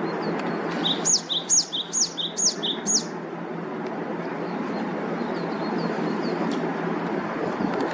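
Steady rush of a mountain stream, with a bird calling a quick run of five sharp, high, down-sweeping notes about a second in.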